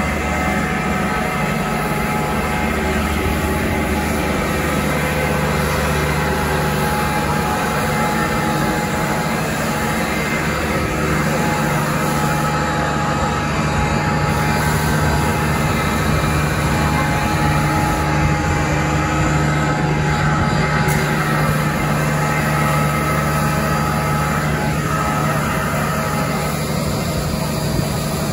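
Fire engine's engine and water pump running steadily while a hose is in use, a constant loud drone with a low hum and a few steady higher tones.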